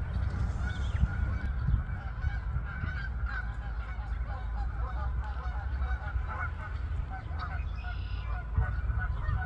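A flock of Canada geese with goslings giving many short, overlapping calls throughout, over a steady low rumble.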